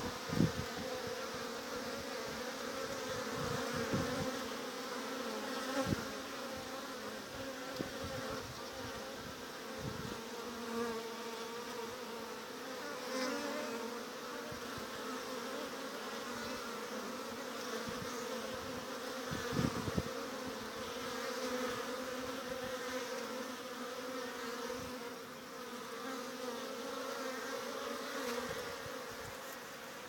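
Honeybees buzzing at the entrance of a hive, a steady hum of many bees flying in and out. A few low thumps come through at scattered moments.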